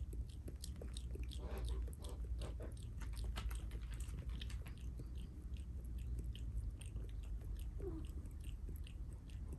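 Cat lapping water from a bowl with its tongue: a quick, even run of small wet clicks, several a second, over a low steady hum.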